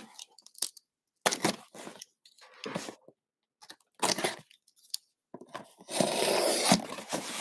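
Box cutter slicing through the packing tape on a cardboard shipping box. Short scrapes and knocks of the box being handled come first, and a longer stretch of cutting starts about six seconds in.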